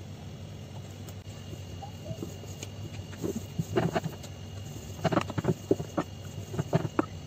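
Rolling pin knocking and clattering on a stone rolling board as dough is rolled out thin, in irregular bursts of short taps starting about three seconds in, over a low steady hum.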